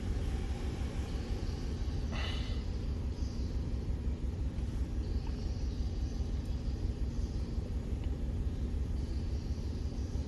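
Car engine idling with a steady low rumble, the engine flagged with a cylinder 2 misfire (code P0302).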